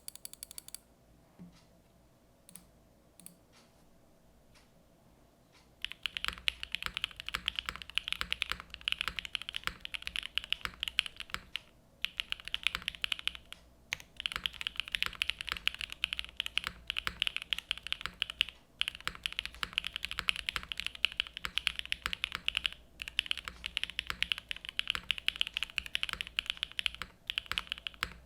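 Typing on a Sanction TKL custom mechanical keyboard with Krytox-lubed Gateron Raw switches on a polycarbonate plate, under Keykobo keycaps. Only a few scattered keystrokes at first, then from about six seconds in fast, continuous typing with a few brief pauses.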